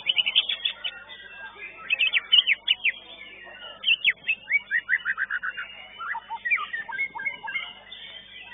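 Caged competition songbird singing loud bursts of rapid, sharply sweeping whistled notes, four phrases with short pauses between them.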